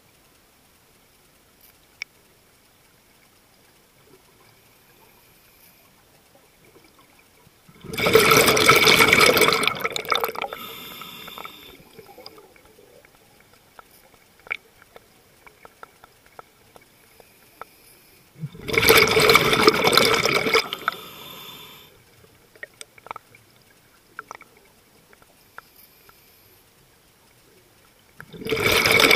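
Scuba regulator exhaust bubbles from the diver holding the camera, heard underwater: three exhalations about ten seconds apart, each a loud bubbling rush of about two and a half seconds that trails off. Between breaths it is quiet apart from small clicks.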